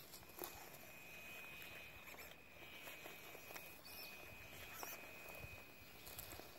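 Faint rustling and scattered light crackles as a WPL C24 RC crawler's tyres roll slowly over dry grass and moss, with a faint steady high whine throughout.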